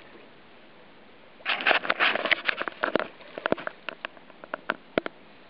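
Hooked steelhead thrashing and splashing at the water's surface: a dense flurry of splashes starts about a second and a half in, then thins to scattered sharp splashes.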